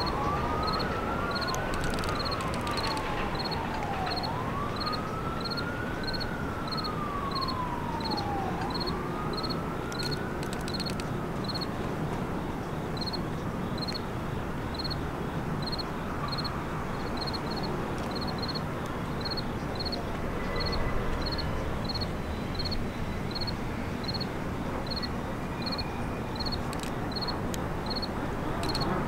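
Emergency vehicle siren wailing, its pitch slowly rising and falling for about the first ten seconds before fading out, over a steady low rumble. A faint high chirp repeats about every two-thirds of a second throughout.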